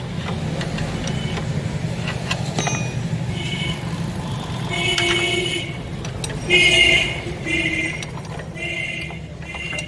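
An engine runs steadily throughout. Over it come a series of short, high-pitched squeaks, each about half a second long, repeated several times from about three seconds in.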